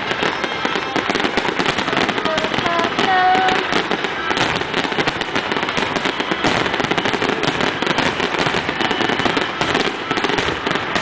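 Fireworks display: a continuous rapid barrage of bangs and crackling from aerial shells bursting.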